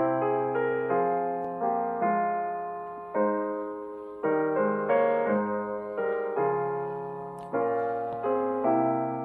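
Slow, gentle solo piano music: chords struck one after another, each ringing out and fading before the next.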